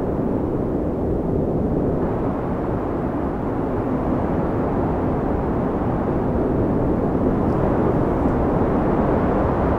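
Steady, low rushing wind of a snowstorm, rising and easing slightly.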